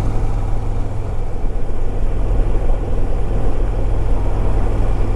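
Harley-Davidson Ultra Limited's V-twin engine running at a steady cruise while riding, a constant low engine note with road and wind rush over it.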